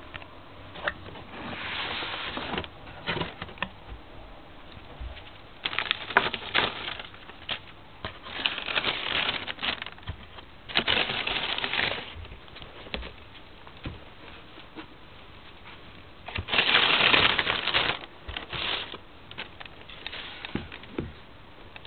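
Tissue paper rustling and crinkling, with cardboard shoebox handling and scattered clicks and taps, as new trainers are unwrapped. It comes in several bursts, the loudest about three-quarters of the way through.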